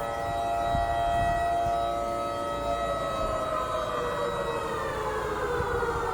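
Air-raid-style curfew siren wailing. Its pitch falls slowly over several seconds and bottoms out near the end. It is sounding the nightly lockdown curfew.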